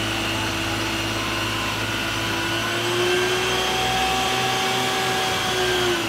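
Isuzu water tanker truck running its pump to drive the roof water cannon: a steady rushing hiss with a droning whine that rises slightly in pitch about three seconds in.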